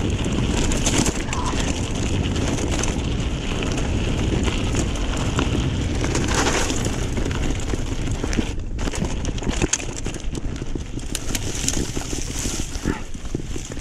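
Wind buffeting the microphone and a mountain bike rattling as it rolls over a rough dirt trail, with more clattering knocks in the last few seconds.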